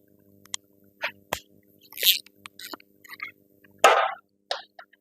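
Metal tools clinking and clanking, the sound of steel sockets being picked out and handled: a string of separate clicks and knocks, the loudest a rough rattle about four seconds in.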